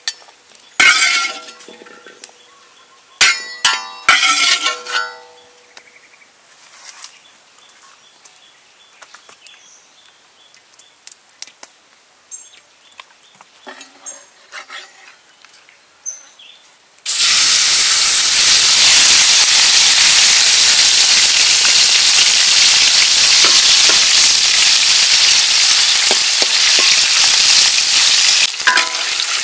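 A metal spatula clinks and scrapes against a wok and a porcelain plate as fried garlic and chillies are tipped out, followed by quiet handling with a few small clicks. About seventeen seconds in, a beef steak goes into hot oil in the wok and starts sizzling loudly and steadily, with fresh garlic cloves frying beside it.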